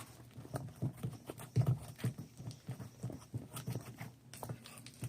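Irregular soft knocks and clicks, several a second, from handling a food colouring bottle and a bowl of glue and shaving cream while green colouring is added.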